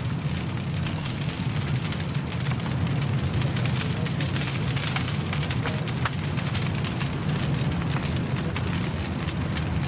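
Large fire of timber props and old tyres crackling and burning, with a low steady rumble underneath: the fire lit under the base of a chimney stack to burn away the wooden props that hold it up so it will fall.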